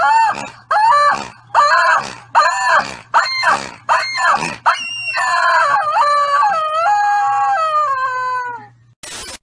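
Rubber chicken toy squeezed by hand: a quick run of short squawks, about two a second, then one long drawn-out squawk of about four seconds that falls in pitch in steps.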